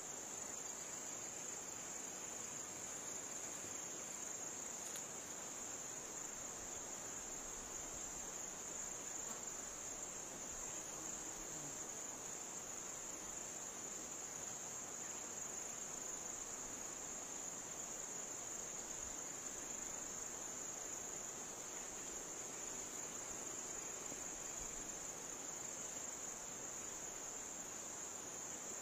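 Steady chorus of insects: a continuous high-pitched shrill drone with no breaks, over faint background hiss.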